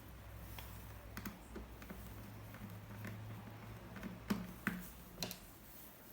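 Scattered light clicks and taps of hands handling a laptop's hard drive and plastic case during its removal. The loudest knocks come about four to five seconds in, over a steady low hum.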